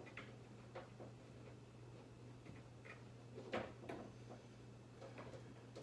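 Faint scattered clicks and taps of handling as the connected wires are pushed back up into the electrical box, the loudest few about three and a half seconds in, over a steady low hum.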